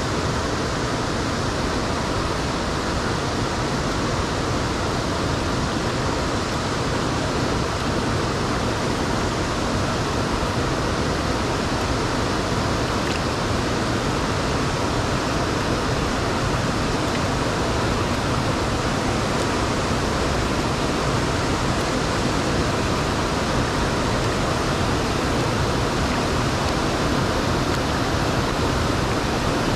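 Steady rushing noise of a waterfall ahead, even and unbroken.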